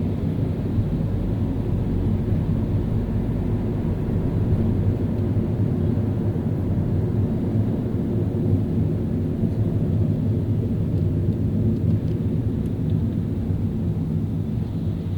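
A car driving on a city street: a steady low rumble of engine and tyre noise that eases off slightly near the end.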